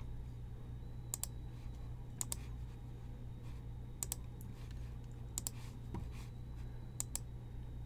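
Computer clicking while a spreadsheet is edited: sharp clicks in quick pairs, about five pairs a second or so apart, over a low steady hum.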